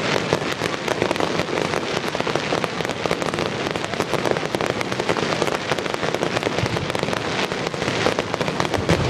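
Fireworks crackling: a dense, unbroken rattle of many small pops at a steady level, with no single big boom standing out.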